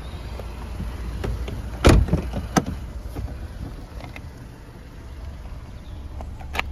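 Volkswagen car doors being worked: a heavy thud about two seconds in and a lighter clunk just after, then a sharp knock near the end, over a steady low rumble.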